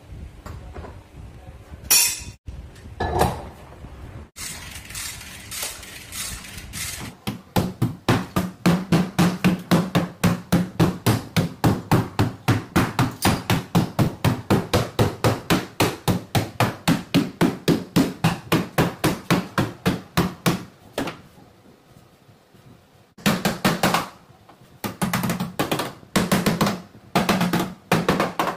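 Hammer blows on the sheet-metal trunk floor and rear panel of a collision-damaged Nissan Sentra, beating out the crumpled rear end. A few scattered knocks give way about seven seconds in to a long, even run of sharp strikes at about three a second, which stops briefly and then resumes near the end.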